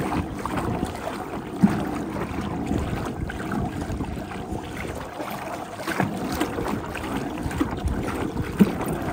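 Small waves lapping and slapping against the hull of a kayak, with wind buffeting the microphone and a couple of short sharp knocks, one about a second and a half in and one near the end.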